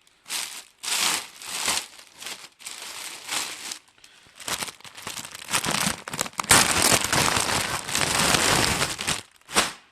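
Plastic packaging crinkling and rustling as hoodies are pulled out of a shipping box, in a run of short swishes that turns into a longer, louder stretch of crinkling about two-thirds of the way through.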